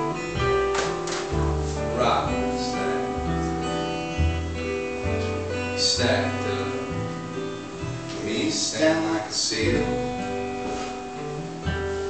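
Acoustic string trio playing live: a strummed acoustic guitar and a plucked upright bass walking through low notes, with a second plucked string instrument on top.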